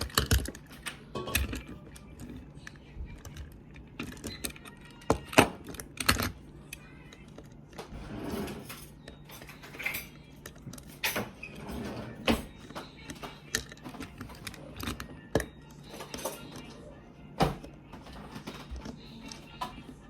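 Irregular small clicks, taps and rattles of plastic parts, screws and magnets being handled as a talking toy train is taken apart by hand.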